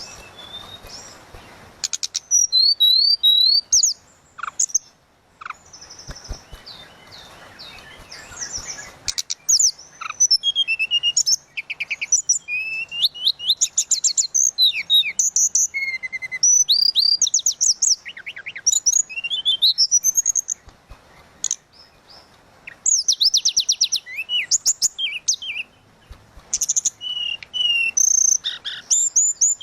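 A tledekan laut (mangrove blue flycatcher) singing gacor in flute-like bouts: clear whistled phrases that glide up and down, mixed with fast chattering trills, in repeated bursts with short pauses between them.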